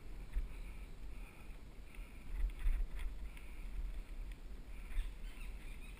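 Wind buffeting an action camera's microphone as a mountain bike rolls fast down a dirt trail: a gusting low rumble, with a few scattered clicks and knocks from the bike rattling over bumps.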